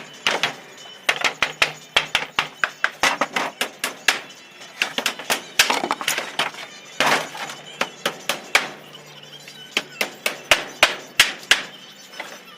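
Repeated hammer blows on a wooden pallet during repair, coming in quick runs of several strikes with short pauses between, mixed with a few longer cracking or scraping noises of boards being worked.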